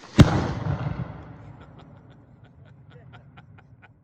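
Tannerite on an old PC detonating when hit by a rifle shot: a loud bang with a rumble that dies away over about a second, followed by a run of faint, evenly spaced ticks.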